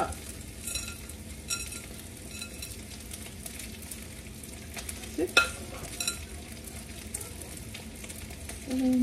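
Steady sizzling of a hot wok on a gas burner as day-old cooked rice is tipped in on top of frying onion and garlic, with a couple of short knocks from the measuring cup about five and six seconds in.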